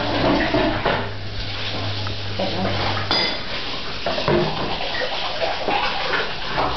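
Dishes and cutlery clinking and clattering as they are handled and stacked, with one sharp ringing clink of crockery about three seconds in. A low steady hum underneath stops at the same moment.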